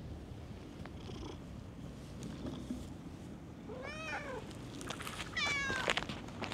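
Domestic cat meowing twice: a short call that rises and falls about four seconds in, then a falling meow about a second and a half later.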